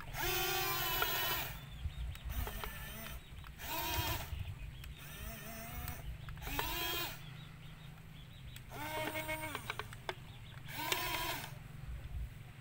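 Electric gear motors of a toy RC excavator whining in about five short bursts, each up to about a second and a half long, the pitch climbing as each starts and sinking as it stops. The loudest burst comes first.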